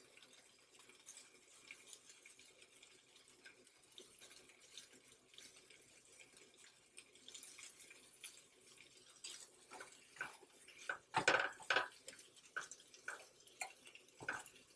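Deli turkey slices sizzling faintly on a hot griddle, a light hiss with many small pops. A little past halfway through, a spatula scrapes and taps against the griddle plate in a brief cluster of louder strokes.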